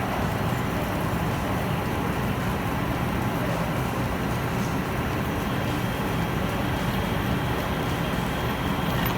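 16K20 screw-cutting lathe running steadily, its motor and headstock gearbox making a continuous low hum.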